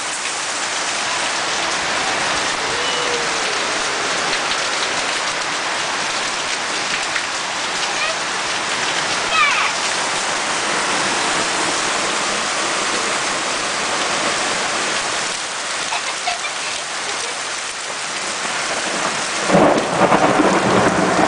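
Torrential rain falling steadily on the yard and roof. A loud burst of thunder comes near the end.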